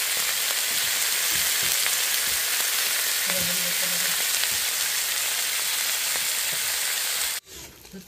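Pork belly strips, sausages and shrimp sizzling in their fat on a hot flat iron griddle plate: a steady frying hiss that cuts off abruptly near the end.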